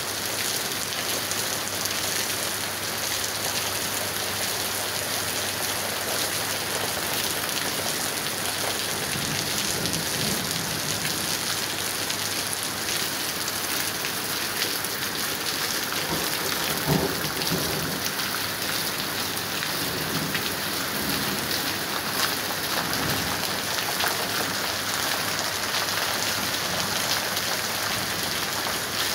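Heavy rain pouring steadily onto a street, with low rolls of distant thunder rising under it several times, the strongest about halfway through.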